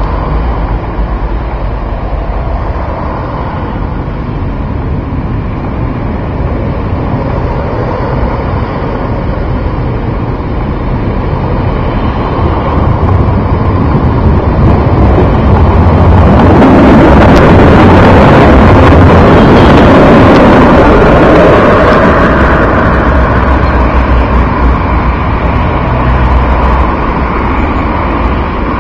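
Berlin low-floor tram running along street-side track and passing close, its rolling and motor noise swelling to a peak past the middle and then fading. Wind rumbles on the microphone throughout.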